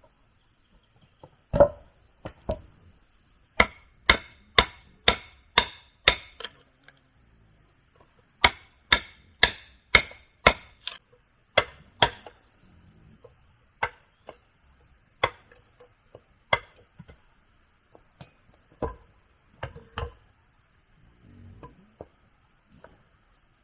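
A hand tool striking wood again and again, in runs of sharp blows about two a second with a slight ring to each. The blows then slow to single strikes near the end.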